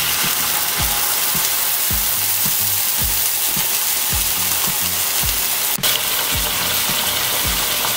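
White wine hitting a hot oiled pan of browned leeks and sizzling steadily as it deglazes the pan, with a brief break about six seconds in. A low, regular beat of about two pulses a second runs underneath.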